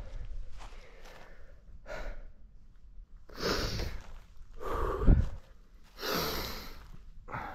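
A person breathing heavily close to the microphone: separate loud breaths about every second and a half in the second half, with a weaker one near two seconds in. A low thump about five seconds in.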